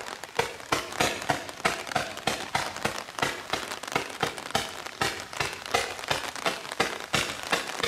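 110-shot firework barrage cake firing: a rapid string of sharp shots at about three a second, with continuous crackle between them.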